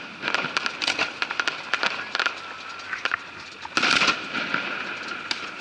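Fireworks display: aerial shells going off in a run of sharp bangs and crackles, with a denser, louder cluster of bursts about four seconds in.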